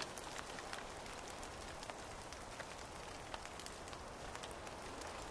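Steady rain falling, quiet: an even hiss dotted with scattered ticks of drops.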